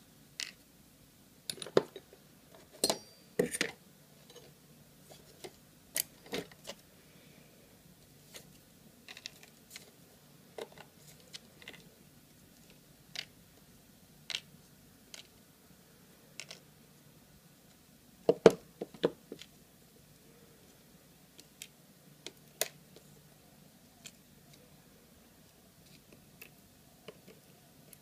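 Small brass padlock parts, a lock core and its key pins, being handled and set down, giving scattered light metallic clicks and taps, with a flurry of sharper clicks a couple of seconds in and again about eighteen seconds in.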